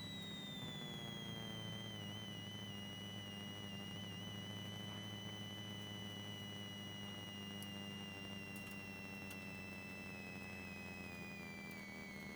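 Rally Holden Commodore heard from inside the cabin at low speed: a steady low engine drone with a high whine that slowly falls in pitch throughout.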